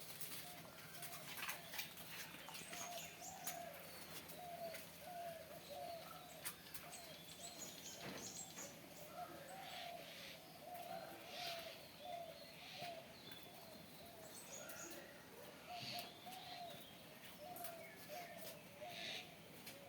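Pigeons cooing in a long run of short wavering calls, with small birds chirping here and there.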